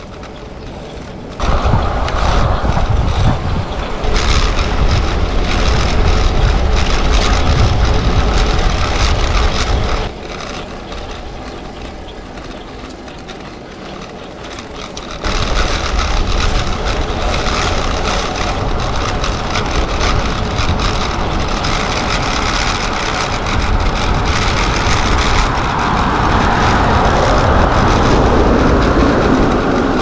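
Wind buffeting the microphone and the road bike's new 700x28 tyres rolling on asphalt while it is ridden, as a heavy low rumble over a steady rushing hiss. It drops quieter for a few seconds in the middle, then picks up again.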